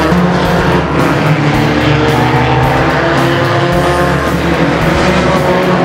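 Stock cars racing on a short oval track, engines running continuously, mixed with background music.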